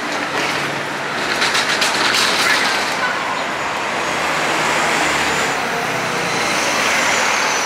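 An articulated city bus driving past close by, its engine and tyres over steady street traffic noise, followed by a second bus going by.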